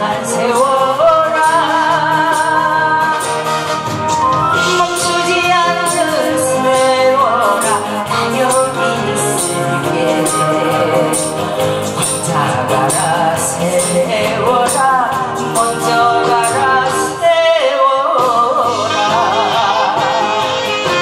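A woman singing a Korean trot song into a microphone over backing music with a steady beat.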